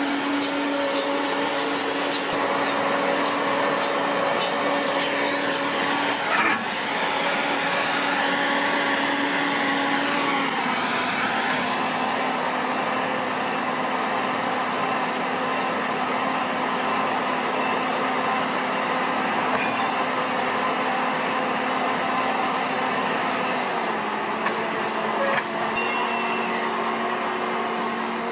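Machinery running with a steady whine over a noisy hum. The pitch steps down slightly about ten seconds in and again near the end.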